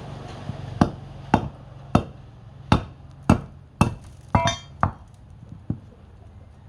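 About ten sharp knocks, roughly two a second, thinning out after about five seconds; one near the middle rings with a metallic clink. A steady low hum runs underneath.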